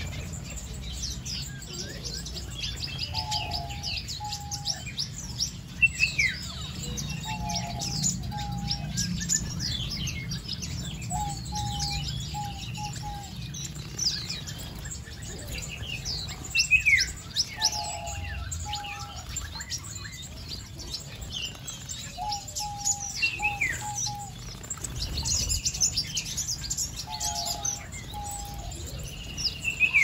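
A mixed flock of small aviary finches, zebra finches among them, chirping and calling continuously with short, high, quick notes. A lower call of two or three short notes repeats every few seconds.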